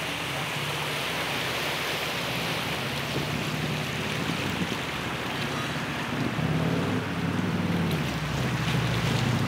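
Steady rush of wind and water with a low engine hum underneath. The hum swells in the last few seconds.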